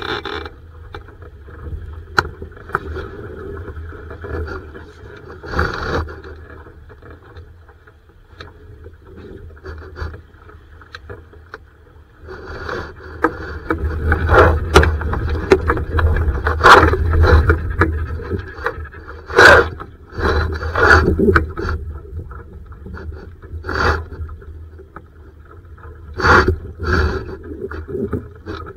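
Laser sailing dinghy knocking and scraping: repeated sharp knocks and rubbing of hull and fittings over a continuous low rumble, busiest and loudest through the middle of the stretch and again near the end.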